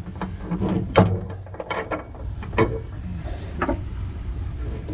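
Steel anchor chain clinking and knocking as it is handled while the line tying it to the anchor shank is pulled tight and trimmed. There are several sharp clanks, the loudest about a second in, over a steady low rumble.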